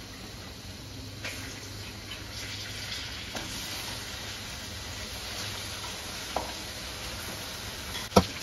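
Raw chicken pieces and onions sizzling in hot oil in an aluminium kadai, a steady hiss, with two sharp knocks near the end.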